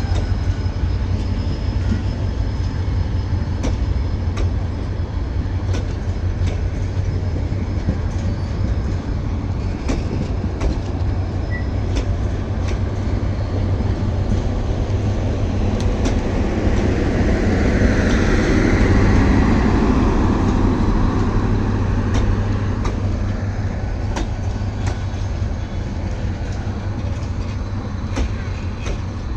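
Passenger train coaches rolling past close by, with a continuous low rumble and wheels clacking irregularly over rail joints. The rumble swells louder a little past halfway, then eases.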